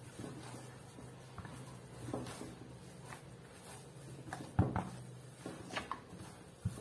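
Hand kneading and squeezing crumbly sour-cassava-starch dough in a plastic bowl: soft, irregular squishing and patting, with a few sharper knocks, the loudest about four and a half seconds in and another near the end.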